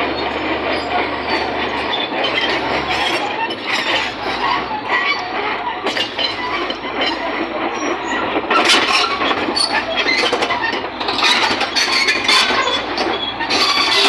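Bulldozer's steel crawler tracks clanking and squealing as it moves, a continuous metallic clatter with sharp clinks that grows heavier about eight seconds in.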